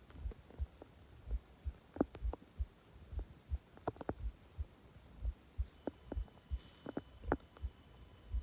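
Subtle stomach growling heard close up: soft low thumps about three a second, with scattered sharper pops and gurgles now and then.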